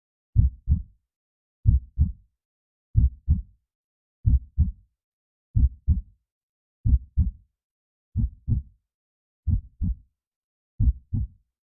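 Heartbeat sound effect: slow, steady double thumps (lub-dub), one beat about every 1.3 seconds, low and dull, with silence between the beats.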